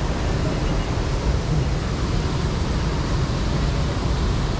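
A waterfall rushing steadily: an even, unbroken wash of noise with a strong low rumble.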